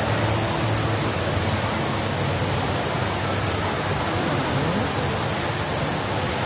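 Steady rush of falling water from Jewel Changi's Rain Vortex, the tall indoor waterfall, with a faint low hum beneath it.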